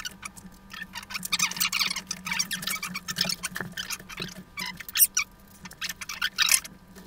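Irregular clicking, scraping and rustling from gaming-chair parts and screws being handled and worked together during assembly.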